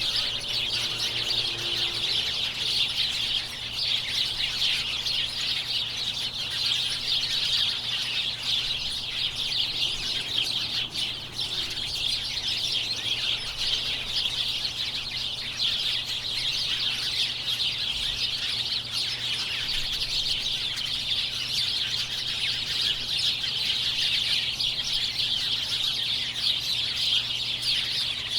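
Large flock of small birds chirping all at once: a dense, unbroken chorus of overlapping high chirps and tweets at a steady level.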